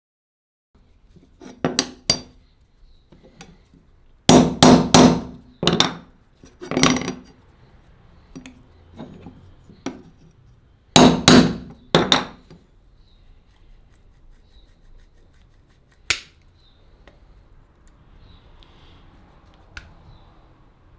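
Hammer blows on the old cleaver while its broken handle is being knocked apart, coming in irregular groups with several strikes in quick succession, each with a brief ring.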